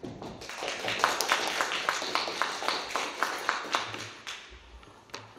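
Audience applauding. The clapping swells, holds, and dies away near the end, and one nearby pair of hands claps sharply about four times a second above the rest.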